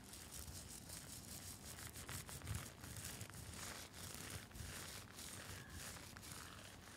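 Scratching and handling of a rhinestone-studded face mask: a dense, scratchy hiss full of small clicks, with a soft thump about two and a half seconds in.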